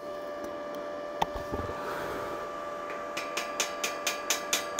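Gasless (flux-core) MIG welder running with a steady hum, a single click about a second in, then from about three seconds a run of short crackling arc bursts, about four a second, as screws are tack-welded.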